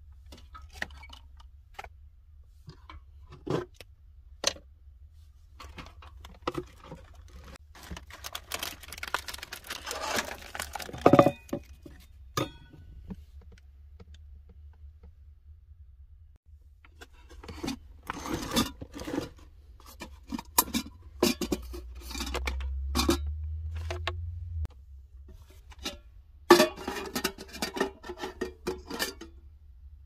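Scattered knocks, clicks and rustling as a camp stove, wooden boards and a metal pour-over coffee dripper are moved and set down on plywood shelving, with a dense stretch of clatter and rustling and a steady low hum for a few seconds later on.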